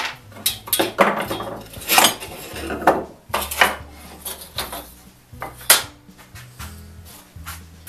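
Steel buck saw blade and frame parts clinking and clattering against a wooden workbench as the saw is taken apart and set down, about ten sharp knocks and clinks, some with a brief metallic ring.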